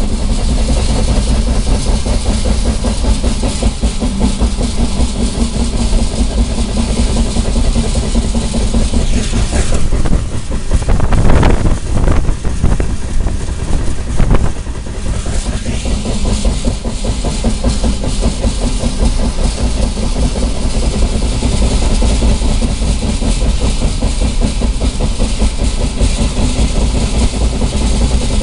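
Wheels of a CSX Tropicana juice train's refrigerated boxcars rolling along the rails at close range: a steady low rumble with a continuous clickety-clack. It swells louder for a few seconds near the middle.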